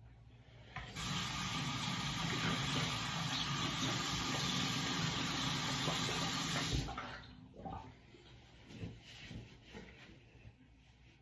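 Bathroom sink tap running steadily for about six seconds while face cleanser is washed off. It starts about a second in, is shut off abruptly, and a few faint small knocks follow.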